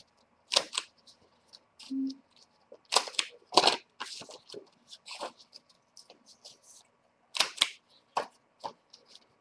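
Crop-A-Dile corner-rounding punch set for a 3/8-inch radius, snapping shut on paper corners: several sharp clicks, some in quick pairs, with lighter ticks of handling between.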